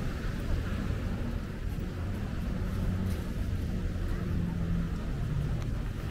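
City street traffic: vehicle engines running with a steady low rumble and hum.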